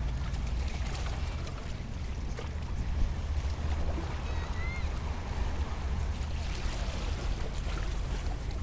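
Steady low rumble of wind on the microphone over the wash of sea water at a rocky shore.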